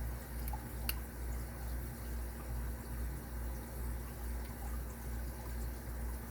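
A low, steady hum that swells and fades about twice a second, with a faint click about a second in.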